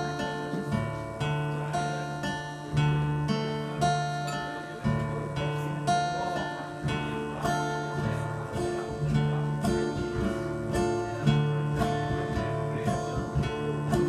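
Three acoustic guitars played together live: an instrumental intro of strummed chords with picked notes ringing over them, each new chord struck about once a second.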